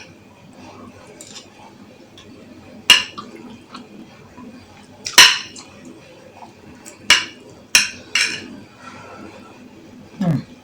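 Cutlery clinking against a bowl five times while a plate of rice and beans is eaten, sharp short strikes a second or two apart. Near the end comes a short low sound falling in pitch.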